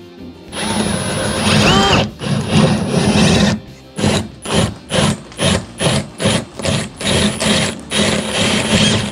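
Cordless drill turning a spade bit as it bores through drywall. It runs steadily for about three seconds, then in short pulses about twice a second as the trigger is squeezed and released.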